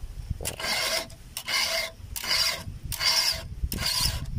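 Round chainsaw file rasping through the cutters of a chainsaw chain during hand sharpening: about five even strokes, each about half a second long with a short gap between.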